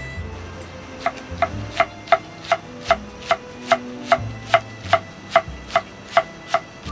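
Knife chopping on a wooden cutting board: about fifteen even strokes, roughly two and a half a second, starting about a second in.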